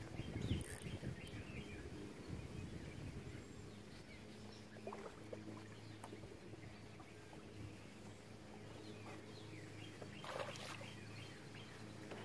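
Faint outdoor ambience by a lake: scattered short bird chirps over a steady low hum, with a brief rustle about ten seconds in.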